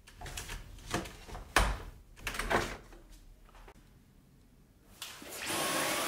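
Plastic knocks, clicks and scraping as a Dyson V11 filter unit is fitted back onto the cyclone, the sharpest knock about a second and a half in. Near the end a steady rushing noise comes in and holds.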